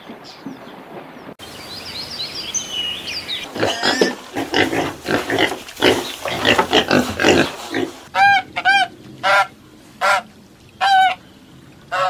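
A pig grunting and squealing in a quick, dense run, after some brief high bird chirps. Then comes a series of separate honking calls from waterfowl, each short, spaced about half a second to a second apart.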